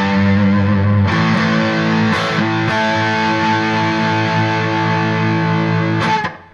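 Electric guitar played through a Vox VT20X Valvetronix tube amp with an overdriven tone: a chord change about a second in, then one chord left ringing until it is muted abruptly near the end.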